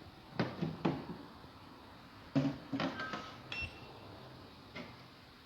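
A few scattered knocks and clunks of something being handled, with two brief high beeps about halfway through.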